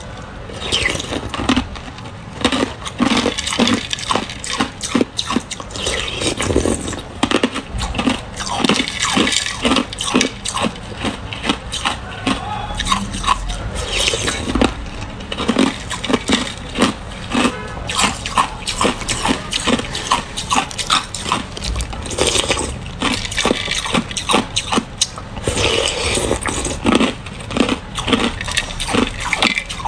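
Ice being chewed up close: a dense run of quick, irregular crunches and cracks as the ice breaks between the teeth.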